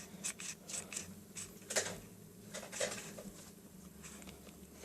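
Faint scattered clicks and light taps of small craft pieces being handled on a table, with a couple of slightly louder taps about two and three seconds in.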